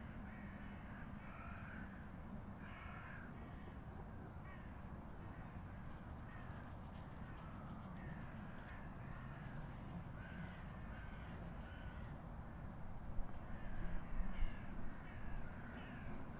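Crows cawing repeatedly, over a steady low background rumble, with a few louder low thumps near the end.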